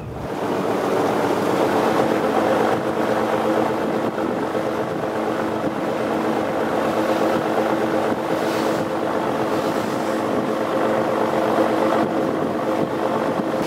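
Sardine fishing boat's diesel engine running steadily under way, a constant hum with a rush of sea and wind over it.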